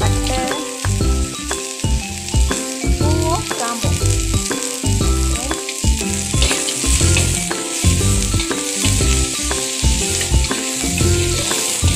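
Sliced onion, ginger and curry leaves sizzling in hot oil in a wok as a metal spatula stirs them, with background music playing under the frying.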